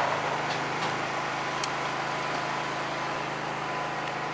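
A shotgun shot's report dying away, followed by a steady low hum and a few faint clicks.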